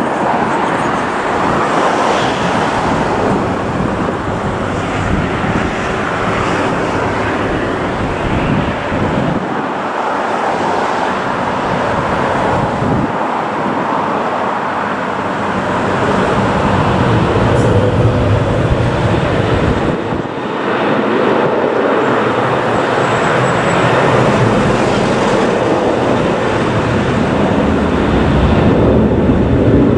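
Boeing 737-900ER's CFM56-7B jet engines running as the airliner moves onto the runway, getting louder about halfway through as the engines spool up for the takeoff roll.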